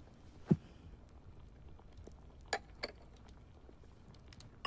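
Teaware being handled on a table: a soft knock about half a second in, two light clicks a little past halfway, and a short ringing ceramic clink at the very end, as a tea cup or pot is set down and moved to replace cold tea.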